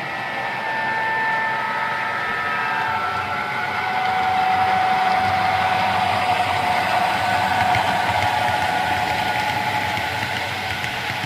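Sound decoders in HO-scale model EMD diesel locomotives playing a multi-note horn chord that stops about three seconds in, over the decoders' diesel engine sound. A single held tone follows through the middle, with the rolling noise of the model freight cars on the track.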